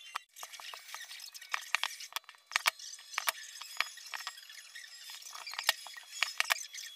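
Cleaver chopping vegetables on a wooden chopping board: irregular sharp knocks of the blade striking the board.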